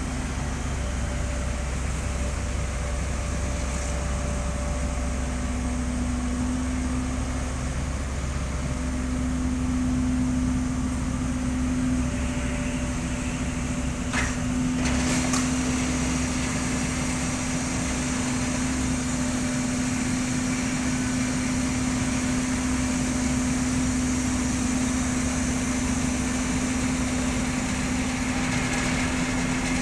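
Heavy diesel engine running steadily at a constant speed, with a couple of brief clicks about halfway through.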